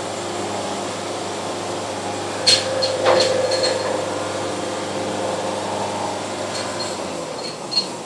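Lumber boards being handled and set down on an air-drying stack: two sharp wooden knocks about two and a half and three seconds in, the second ringing briefly, and another knock near the end. A steady mechanical hum runs underneath and drops lower about seven seconds in.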